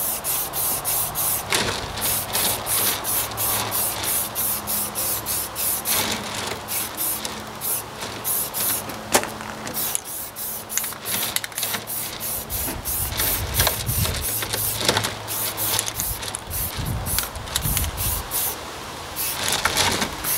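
Spray primer hissing out in short, quick bursts, about three a second. Wind rumbles on the microphone in the second half.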